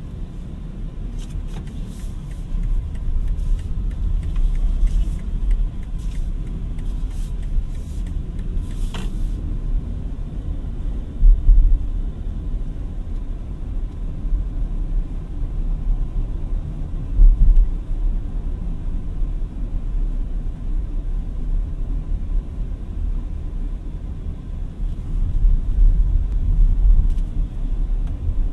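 Steady low road and tyre rumble while a BMW iX3 electric crossover drives along, with no engine note. Two louder low thumps come near the middle.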